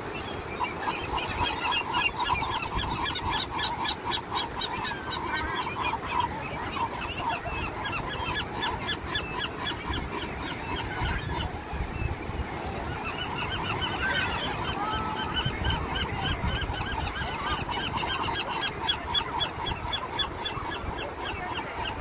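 Gulls calling in long runs of short notes repeated several times a second, with a brief lull about halfway. Steady surf noise underneath.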